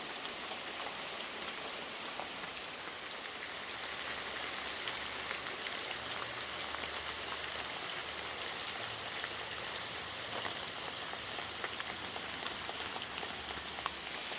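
Steady rain falling on forest foliage and ground, a continuous pitter-patter with scattered individual drops ticking.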